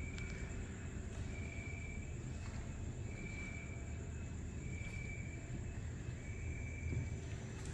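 Cricket chirping: short, even, high chirps repeating about every one and a half to two seconds over a steady low rumble of background noise.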